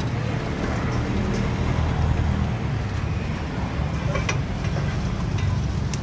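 Steady low engine-like rumble, with a few light clinks of metal utensils against stainless steel bowls.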